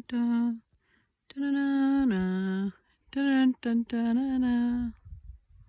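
A person humming a short tune in a few long held notes, with pitch steps and dips between them. It stops about five seconds in, leaving a faint low rumble.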